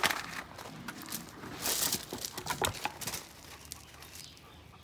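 A German Shepherd pawing and nosing a volleyball over gravel and grass: a string of scuffs, knocks and short noisy bursts, quieter after about three seconds.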